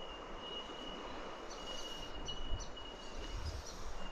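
Outdoor creek-side ambience: a steady high-pitched insect drone that breaks off briefly now and then, and short repeated bird chirps about halfway through, over a soft even hiss. A couple of low bumps come through on the microphone past the middle.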